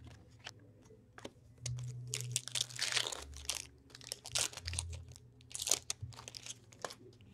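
Hockey card pack wrapper being torn open and crinkled, with cards being handled: a run of sharp crackles and rustles that starts about a second and a half in and eases off near the end.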